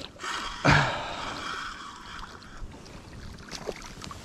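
Hooked perch splashing at the water's surface as it is reeled in on a spinning rod, with a loud splash about half a second in and a couple of seconds of splashing water after it.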